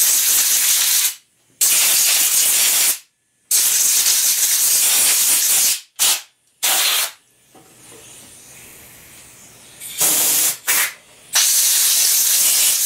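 Compressed-air blow gun hissing in a series of long blasts with a few short puffs between, blowing mouse-nest debris off a small engine's cylinder head and cooling fins.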